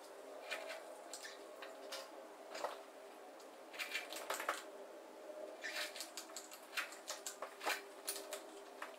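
A cat eating dry food from a plastic bowl: irregular crunching clicks, in bunches about four seconds in and again near the end, over a faint steady hum.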